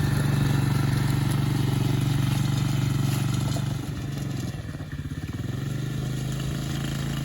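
Small Polaris Outlaw 110 youth ATV engine running steadily at low speed, then dropping a little in pitch and level about four seconds in as it pulls away.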